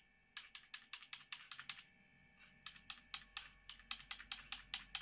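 A computer keyboard key tapped rapidly over and over, in two runs with a short pause about two seconds in, to break into the BIOS setup as the PC boots. Under it is a faint steady whine from the Shuttle XPC's power-supply fan, which is dead noisy.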